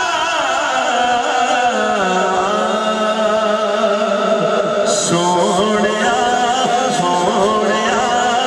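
A man singing a Punjabi naat into a microphone through a sound system, in long held notes that slide and waver.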